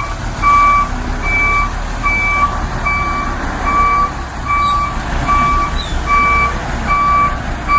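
A truck's reversing alarm beeping steadily, about three beeps every two seconds, over the rumble of a running engine. This is a recorded truck sound effect accompanying a toy dump truck.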